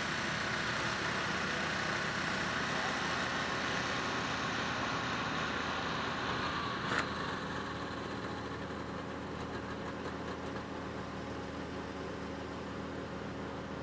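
Engine of a gas utility work truck running steadily, easing a little quieter about halfway through, with a single click about seven seconds in.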